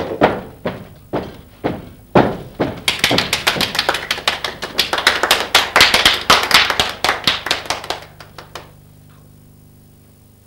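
Rhythmic hand clapping with a few thuds by a small group of people. At first the claps come singly, about two a second. About three seconds in they turn into a fast run of claps lasting some six seconds, which stops abruptly and leaves only a faint low hum.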